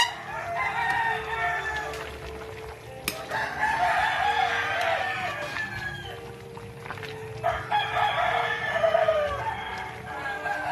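Roosters crowing: about three long, drawn-out crows one after another.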